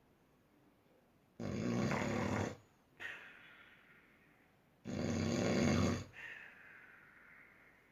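A person snoring heavily: two loud snores about three and a half seconds apart, each lasting about a second and followed by a softer hissing breath.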